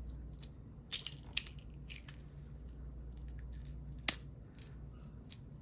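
Small plastic toy parts and beads handled by hand: scattered light clicks and rattles, with one sharp plastic click about four seconds in as the pieces are pressed together.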